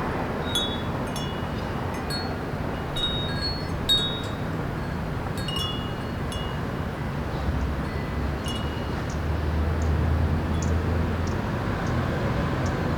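Small wind chime tinkling irregularly in a breeze, its bright notes coming in scattered clusters that thin out in the second half. Under it runs a steady city hum, with a low rumble swelling in the second half.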